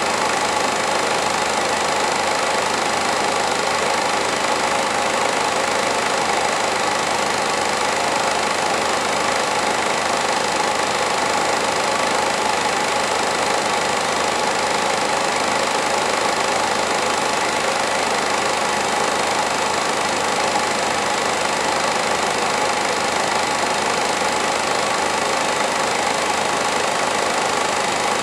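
Home-movie film projector running: a steady, unchanging mechanical whir and drone from its motor and film drive.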